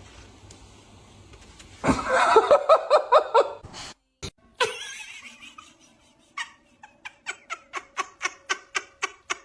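A person laughing in a quick run of pitched bursts about two seconds in. Then come a few sharp clicks and a regular series of short pitched pulses, about four a second, that fade near the end.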